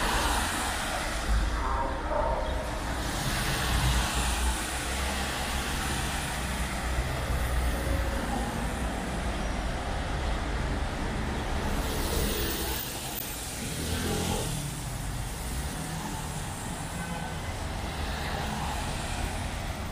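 Road traffic on a rain-wet street: passing cars and buses, tyres hissing on the wet asphalt over a low engine rumble. The sound swells as vehicles pass close, about three seconds in and again around twelve to fourteen seconds in.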